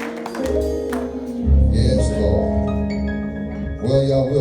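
Instrumental church music: sustained keyboard chords over a bass line, with the bass swelling and the chord changing about a second and a half in.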